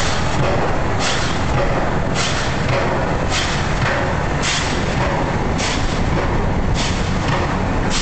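Vehicle road noise, a steady rush with a regular thump about once a second.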